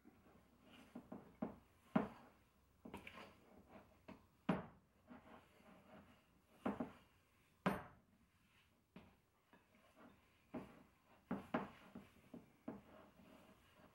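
Handle end of a spoon scraping and knocking against the side of a glass mixing bowl while working a stiff, shaggy no-knead bread dough: irregular soft scrapes and clicks, with a few sharper knocks.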